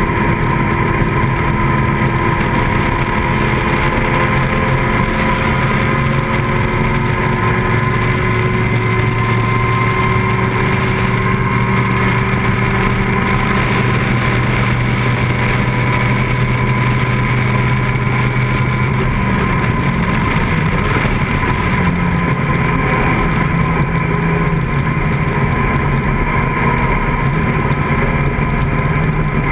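Vintage race car engine running hard at speed, heard from an onboard camera in the open cockpit with wind noise. Its pitch climbs slowly along the straight, then drops and shifts about twenty seconds in as the car slows for a corner.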